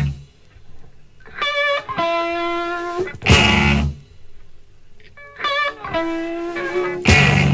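Raw electric blues from a band of two guitars and drums. A distorted electric guitar plays a repeating lick of held, slightly wavering notes, and the whole band hits hard about every four seconds.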